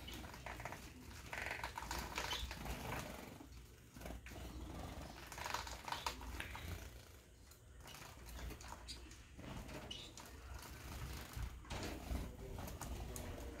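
Gouldian finches calling softly, with irregular light clicks and rustles from the birds moving about.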